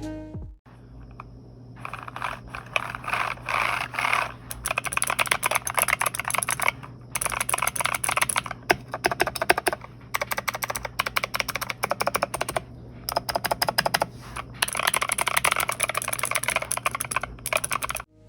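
Typing on a custom mechanical keyboard fitted with lubed and filmed Kailh Speed Gold switches: fast runs of key clicks broken by brief pauses.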